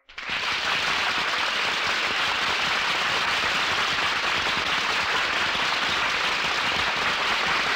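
Studio audience applauding, loud and steady.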